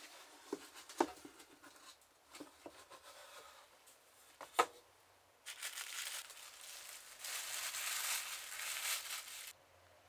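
A few sharp clicks and taps, then about four seconds of tissue paper crinkling and rustling as it is handled, loudest near the end before stopping abruptly.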